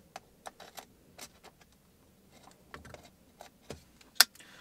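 Scattered small plastic clicks and handling noise as wiring connectors are worked into the switch panel of a car's center-console trim, with one sharper click near the end.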